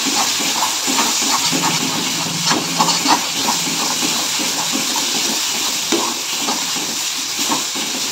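Onion-tomato masala sizzling in a metal kadai, fried down until the oil separates, while a perforated metal spatula stirs and scrapes it: a steady frying hiss with quick scraping ticks of the spatula against the pan.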